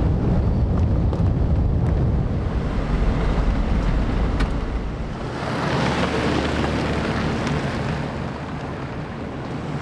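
An off-road SUV driving on a dirt track: a steady rumble of engine and tyres, with wind buffeting the microphone. About halfway through, the deep rumble drops away and a lighter hiss of tyres on dirt and gravel takes over.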